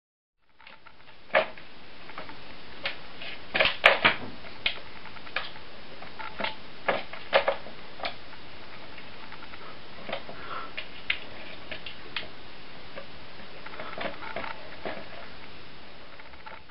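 Irregular plastic clicks and knocks as a kitten paws at a circular track toy and its ball rattles around the plastic track, over a steady hiss. The loudest run of knocks comes about four seconds in.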